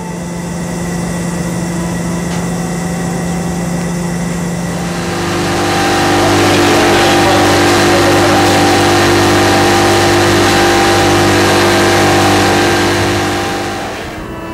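An engine or motor running steadily, louder from about five seconds in and easing off again near the end.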